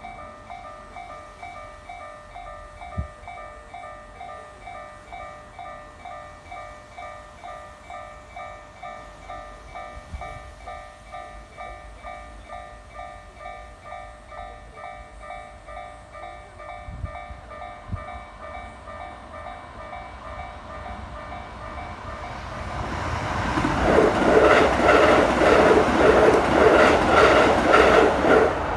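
Japanese level-crossing alarm ringing its steady, evenly repeating electronic ding. From about three-quarters of the way through, an electric train passes close by, loud, with a rapid rhythmic clatter of wheels over the rails that swamps the bell.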